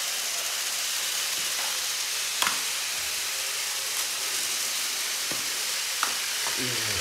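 Steady hiss with a few light clicks of plastic toy railway track being handled, about two and a half, five and six seconds in.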